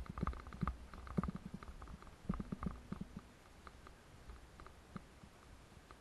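Salsa Timberjack mountain bike rattling over a bumpy dirt trail: quick clusters of clicks and knocks in the first half, thinning to scattered light ticks over a low rumble.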